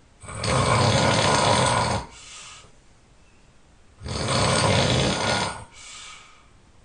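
A person snoring loudly: two long, rough, rattling snores about four seconds apart, each followed by a shorter, quieter breath.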